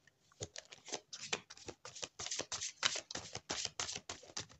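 A deck of Oracle de la Triade cards being shuffled by hand: a quick, irregular run of soft card flicks and slides that starts about half a second in.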